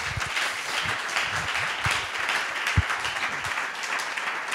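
Audience applauding: many hands clapping in a dense, even patter, with a few dull low thumps, the sharpest about three seconds in.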